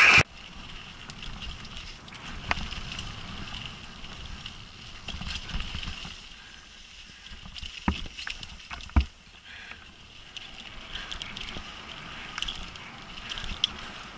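Downhill mountain bike on a dirt trail, heard from a helmet camera: the tyres rolling and the bike rattling, with sharp knocks from bumps, the clearest about 2.5, 8 and 9 seconds in. A short loud burst comes right at the start.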